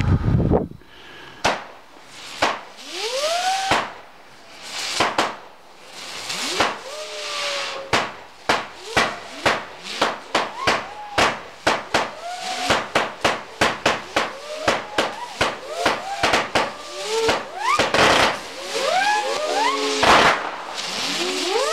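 Firework cake firing a rapid barrage of shots, several a second, many of them with short whistles rising in pitch, over a crackling hiss.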